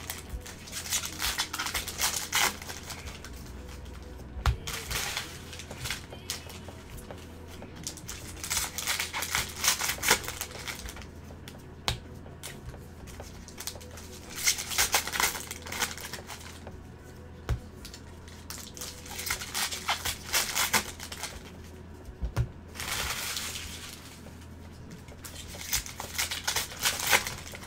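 Trading cards being shuffled and handled close to the microphone: bursts of papery rustling and flicking, each one to three seconds long, about six times, over a low steady hum.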